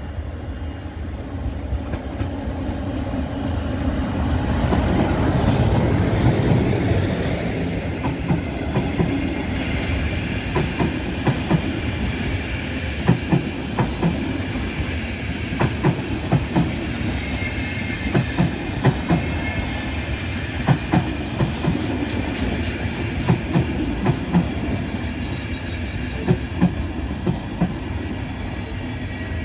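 Passenger train hauled by an electric locomotive running through a station. The rumble builds as the locomotive passes about six seconds in. After that the coaches' wheels clatter over rail joints, with a thin, high, steady squeal from the wheels.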